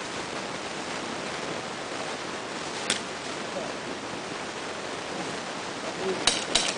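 Airsoft pistol shots: one sharp snap about three seconds in and two quick snaps near the end, over a steady hiss.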